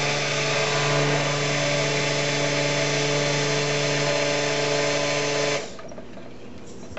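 Stick blender motor running steadily in cold process soap batter, emulsifying the oils and lye water. It cuts off abruptly about five and a half seconds in.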